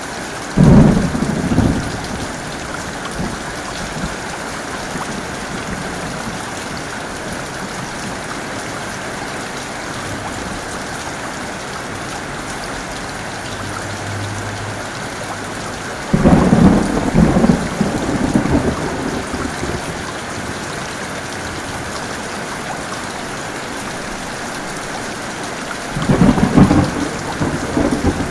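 Heavy rain falling steadily, with three loud peals of thunder: one right at the start, one a little past the middle, and one near the end.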